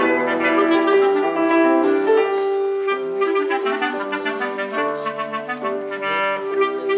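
Chamber trio of clarinet, basset horn and piano playing: the winds hold a long sustained note through the middle over moving piano notes, with more moving lines near the end.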